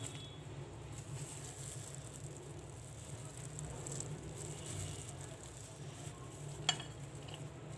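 Faint scraping and dabbing of a spoon spreading chicken-mayonnaise sandwich filling onto bread slices, over a steady low hum, with one sharp click near the end.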